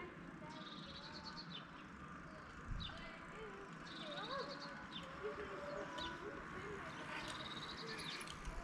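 Birds singing: a short trill of rapid high notes repeats about every three to four seconds, with single sharp chirps in between.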